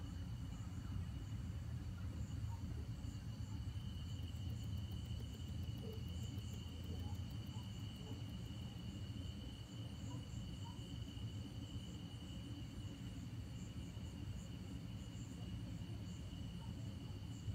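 Steady chorus of night insects, crickets trilling continuously in high, even tones over a low background rumble.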